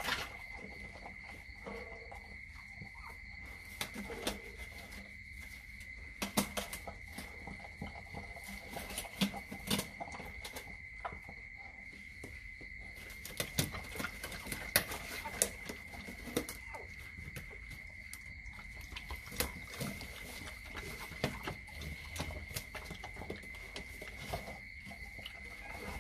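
Rottweiler mother licking her newborn puppy: irregular wet licks and smacks, with clusters of sharper clicks, over a steady high-pitched whine.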